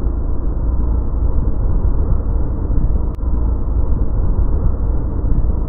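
Wind rushing over the microphone of a camera on a moving motorcycle, with the motorcycle's running mixed into a steady low rumble. A single sharp click comes a little past halfway through.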